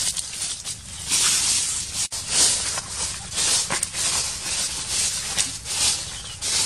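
Fresh banana leaf rustling and crackling as hands fold it over, a crisp rustle that starts about a second in and comes and goes in waves.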